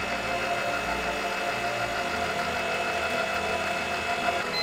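Milling machine spindle running steadily as a twist drill bores into a metal block lubricated with cutting oil, a continuous even whir with a few fixed tones.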